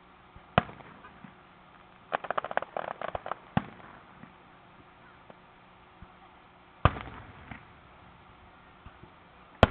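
Aerial firework shells bursting: a sharp bang about half a second in, a quick run of crackling pops a couple of seconds in, another bang about seven seconds in, and the loudest bang at the very end. Each bang is followed by a short echo.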